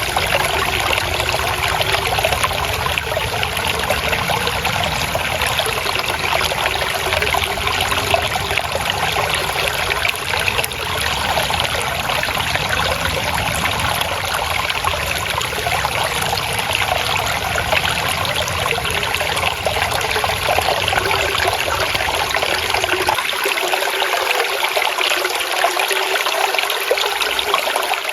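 Flowing water trickling and babbling steadily, like a small stream running over stones. A deeper low rumble under it drops away near the end, leaving only the brighter trickle.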